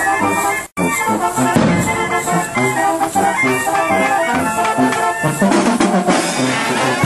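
Marching brass band playing a festive tune, brass over a steady snare and bass drum beat. The sound drops out completely for an instant about a second in, then the music carries on.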